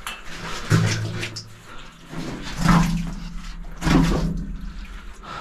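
Water splashing and sloshing as someone moves through shallow water in a flooded rock tunnel, in three louder surges.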